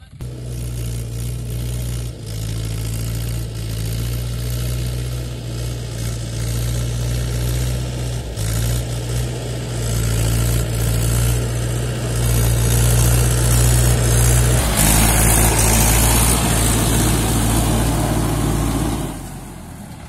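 Diesel tractor engine running steadily under load while a rear rotary tiller ploughs a paddy field, growing louder as it comes close. From about three-quarters of the way through, a loud rushing noise joins in, then the sound drops away near the end.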